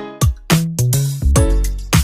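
Background music with a steady beat: percussive hits several times a second over a deep bass line.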